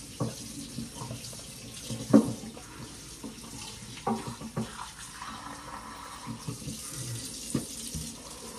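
Kitchen tap running into a sink while a raw chicken is rinsed under it, with a few short knocks from handling in the sink, the loudest about two seconds in.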